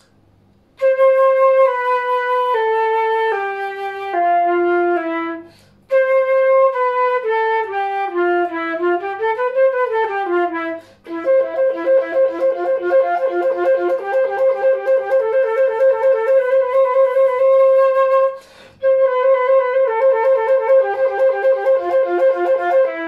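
Silver Jupiter JFL700 concert flute played solo: a slow descending scale in held notes, a quick run down and back up, then fast passages leaping back and forth between a high note and lower ones, with two brief breaths between phrases.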